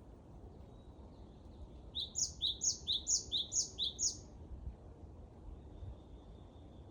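A songbird singing a quick phrase of about five repeated high, rising notes, a little over two a second, starting about two seconds in and lasting about two seconds. A faint thin high whistle comes before and after it.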